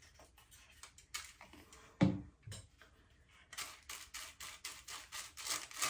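Hair-dye tint brush stroking bleach onto a section of hair laid on aluminium foil: quick, even scratchy strokes about five a second, starting a little past halfway. Before that, faint rustling and a single dull thump about two seconds in.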